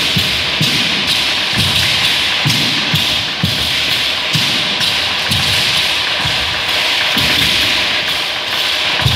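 Huehuetl, a carved wooden upright drum, beaten with sticks in a steady dance rhythm, with low thumps about once a second, some doubled. Over it runs a continuous bright rattling from ayoyote seed-pod rattles on the dancers' ankles, shaking with each step.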